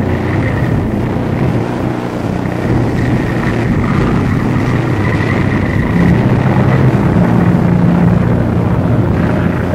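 Dense, rumbling drone of a dark ambient track: a continuous noisy roar with low steady hum tones that swell a little past the middle, and a faint high steady tone above.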